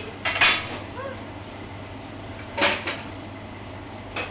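Commercial kitchen work: three short clatters of metal pots and utensils being handled, the loudest about half a second in, over a steady low hum.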